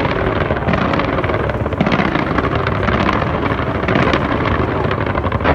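A dense fireworks barrage: many bursts and crackles merging into one continuous rumble.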